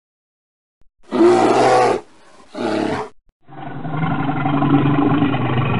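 Two loud, rough growls about a second in, then a bear's long, deep roar starting about three and a half seconds in.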